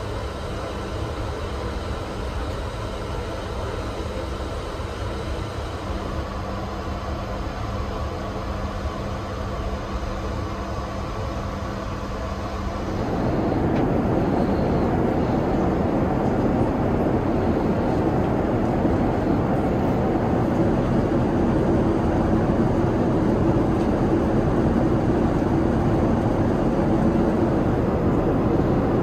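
Steady Boeing 787-9 cabin noise in flight: a low hum with a few steady tones, heard inside the lavatory, then a little before halfway a cut to the louder, even rush of airflow and engine noise in the passenger cabin at cruise.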